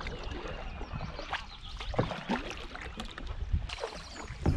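Canoe paddling: a wooden otter-tail paddle pulling and slicing through calm water in C and J strokes, with soft splashes and drips and a few light sharp knocks scattered through. Some wind on the microphone.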